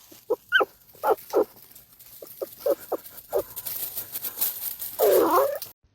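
Dog barking in a series of short, sharp yips, some rising in pitch, then one longer wavering whine near the end.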